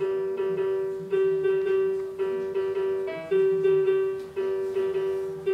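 A baby push-walker toy playing its electronic tune: a simple piano-like melody of short notes over a held note, re-struck about once a second.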